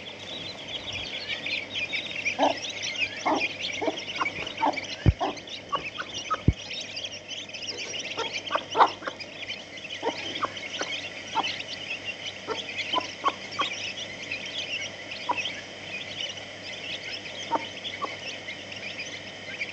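A brood of chicks peeping constantly in dense high chirps as they feed, with scattered short lower clucks from the mother hen and a couple of brief low thumps about five and six seconds in.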